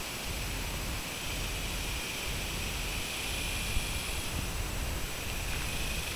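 Wind buffeting the microphone in an open field, a fluctuating low rumble, with a steady high hiss over it and one brief knock a little past halfway.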